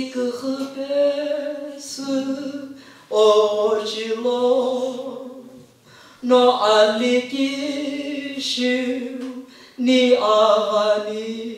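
A man singing unaccompanied into a microphone, in four long phrases of held notes with short breaths between them.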